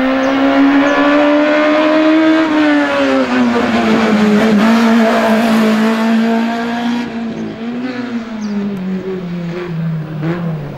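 Small hatchback race car's engine under hard throttle, its note high and steady, then dropping about three seconds in and rising and falling in short swells near the end.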